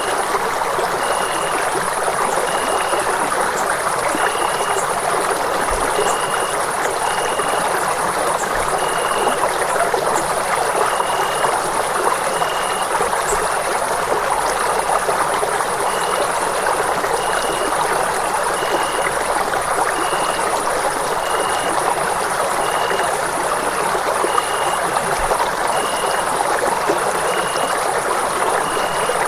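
Running water flowing steadily with an even, unbroken rush. A short high tone repeats about once a second over it, alongside a faint, pulsing very high buzz.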